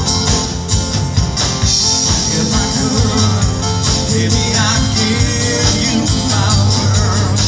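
Live band music through a PA system: electric guitars, drums and keyboard playing, with a voice singing.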